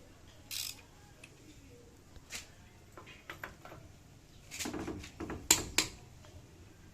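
Handling sounds from a torque wrench and its packaging: a brief rustle about half a second in, then scattered clicks and knocks, with two sharp clicks a moment apart near the end the loudest.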